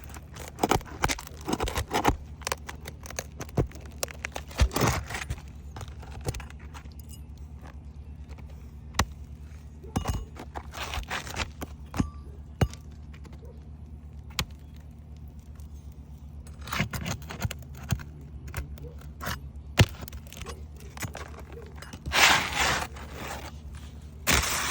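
Hand roofing tools working asphalt shingles and roofing nails: short scrapes and many sharp metallic clicks and clinks come and go irregularly. A steady low hum runs underneath.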